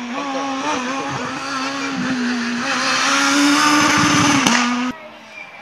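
Rally car engine revving hard and shifting through the gears as it powers round a hairpin, growing louder as it comes close, then cutting off suddenly about five seconds in.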